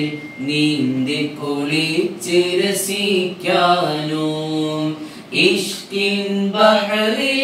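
A man singing a devotional song solo and unaccompanied, in a slow free rhythm of long held notes with ornamented turns and short pauses for breath.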